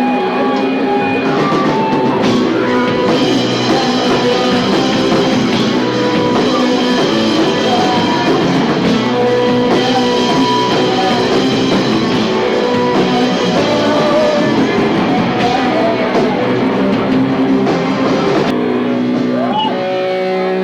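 Rock music playing, with guitar and drums; it thins out near the end.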